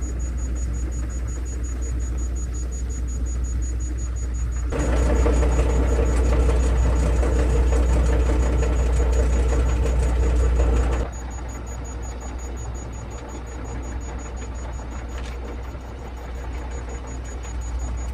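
Engine running steadily at idle with a low rumble. It gets louder about five seconds in and drops abruptly around eleven seconds.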